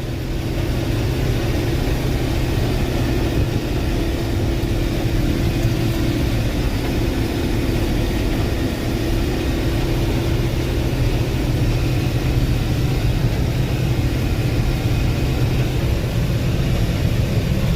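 Case IH 1680 combine running steadily while harvesting barley: a constant drone of its diesel engine and threshing machinery with a steady low hum.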